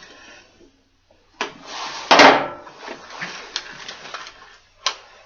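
Hands handling small hardware and kit parts: a knock, then a louder burst of scraping and rustling about two seconds in, followed by a few sharp clicks.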